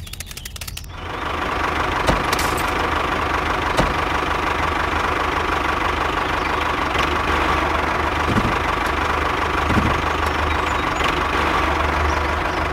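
Miniature model tractor running steadily as it drives through sand over bamboo sticks. It comes in about a second in as a motor drone with a steady whine and a low hum, and there are a couple of sharp clicks near two and four seconds.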